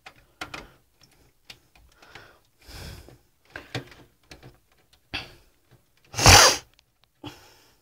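Handling noise from a handheld camera: scattered clicks and knocks, with one loud, short rush of noise about six seconds in.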